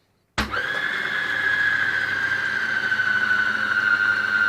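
Electric mixer motor starting suddenly and running with a steady high whine that slowly falls in pitch, mixing cookie dough thick with chocolate chips.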